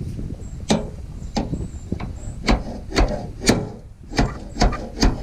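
A run of sharp metal knocks, each with a short squeak, about two a second, as a wrecked truck's hood and its hinge are forced and levered loose.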